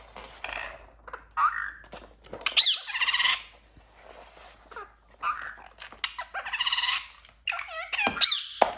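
Indian ringneck parakeet giving a run of high, squeaky calls and chatter in several bursts, with pitch sliding up and down.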